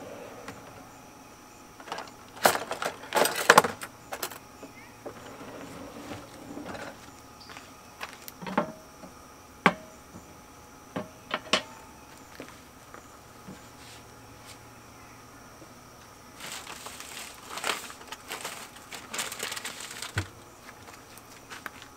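Handling noise: a cluster of rustling and clatter about three seconds in, single sharp clicks and knocks through the middle, and a longer spell of rustling near the end.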